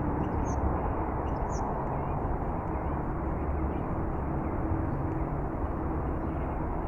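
A few faint high bird chirps, two brighter ones about half a second and a second and a half in, over a steady low rumbling background noise.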